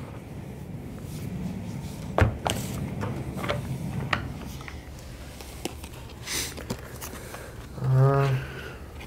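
Paper game cards being pulled from their box and handled on a desk: a few sharp clicks and taps about two to four seconds in. Near the end comes a short hummed 'mm' from a person, the loudest sound.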